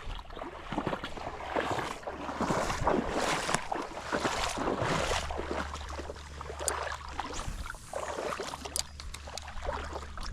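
Shallow water sloshing and lapping in uneven surges, with wind on the microphone and a couple of sharp ticks in the second half.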